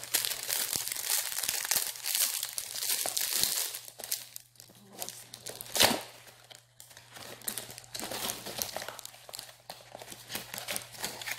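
Clear plastic wrapping crinkling and tearing as it is pulled off a perfume box, in quick irregular crackles, with one sharper, louder crack about six seconds in.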